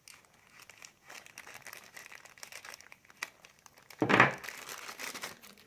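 Packaging crinkling and rustling as a phone's USB Type-C cable is taken out of its wrapper, with scattered small crackles and a louder rustle about four seconds in.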